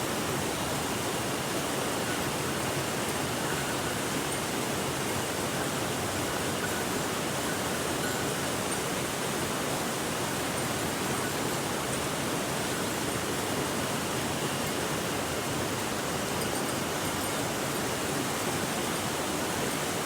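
Steady rushing of a mountain stream's flowing water, an even hiss that holds at the same level throughout.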